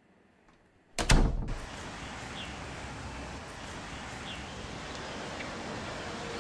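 Near silence, then about a second in a sudden loud thump, followed by a steady hum of street traffic.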